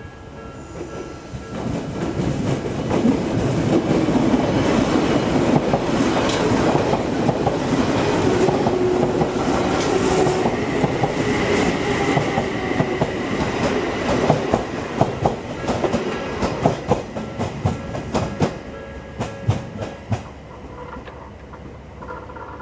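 Odakyu Line electric train passing at speed. A rumble of wheels and running gear swells up about two seconds in and holds. Then comes a rhythmic clickety-clack of wheels over rail joints, which fades toward the end.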